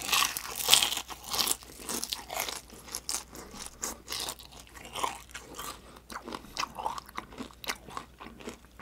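Crispy deep-fried chicken skin bitten and chewed close to the microphone: a burst of loud crackling crunches in the first second or so, then many smaller, irregular crunches as it is chewed.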